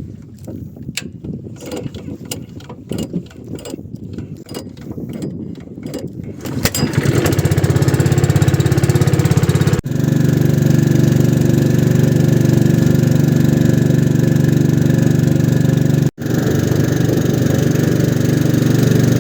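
Boat's hull knocking and slapping in choppy water, then about seven seconds in the boat's engine starts and runs steadily and loud, getting under way.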